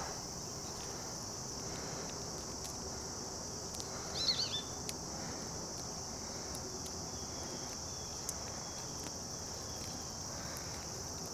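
Steady high-pitched insect trill, like crickets. About four seconds in there is a brief soft flurry of small handling sounds.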